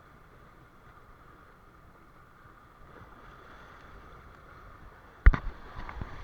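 Steady noise of a boat out at sea. Just after five seconds in there is one sharp knock, followed by a few lighter knocks.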